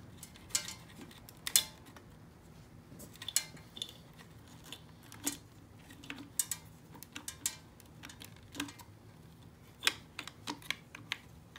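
Irregular light clicks and small metallic taps of hands working inside a Honda Dax's headlight bucket, pulling the headlight bulb and fitting the speedometer cable.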